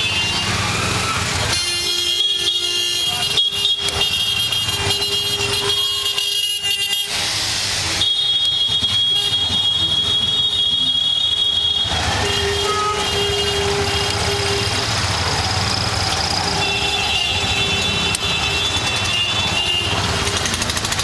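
Busy city street traffic with vehicle horns honking again and again: several long, high horn blasts, some overlapping, over steady engine and road noise.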